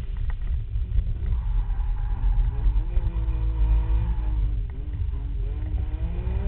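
Trabant's engine revving up and easing off as the car is driven hard through a slalom, under a heavy low rumble. The pitch climbs a couple of seconds in, drops back about two-thirds of the way through, and rises again near the end.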